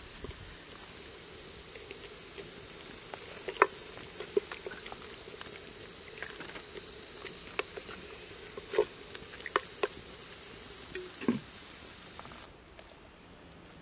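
Steady high-pitched buzzing of insects, with scattered light clicks and knocks from a wooden spoon against a clay cooking pot as the soup is stirred. The buzzing cuts off suddenly about a second before the end.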